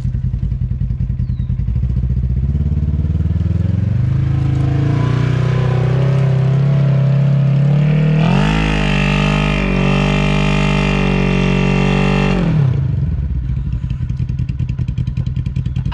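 Yamaha Grizzly ATV engine idling, its revs climbing gradually over several seconds. It then rises sharply and holds at higher revs for about four seconds, and falls back to idle near the end.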